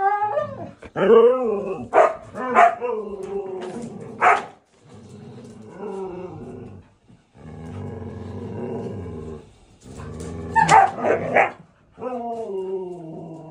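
Siberian huskies vocalizing in husky 'talk': pitched yowling calls that bend up and down, then growling as two of them play-fight. A burst of loud barks and yips comes about eleven seconds in, and a long held howl follows near the end.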